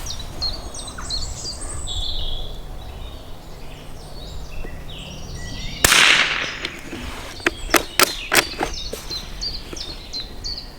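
A single sharp .22LR rifle shot from a Norinco JW25A bolt-action about six seconds in, followed a moment later by a quick run of metallic clicks as the bolt is worked. Birds chirp throughout.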